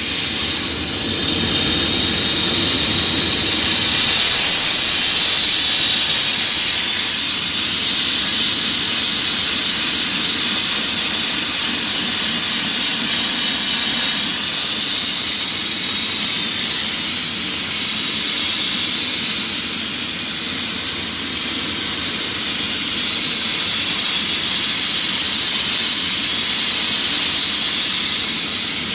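Soft abrasive blaster hissing steadily as it strips paint, a continuous rush of air and media with slight swells in level.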